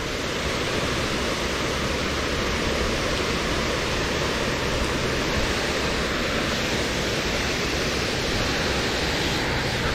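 Steady rush of falling water, an even unbroken noise that does not change.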